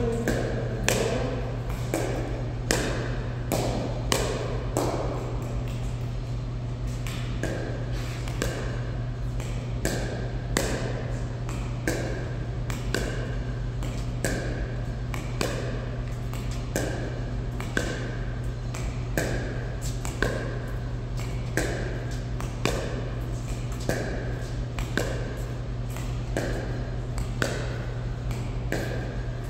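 Pickleball paddles hitting a plastic pickleball back and forth in a warm-up rally, a sharp pop about once or twice a second, some with a short ringing ping. A steady low hum runs underneath.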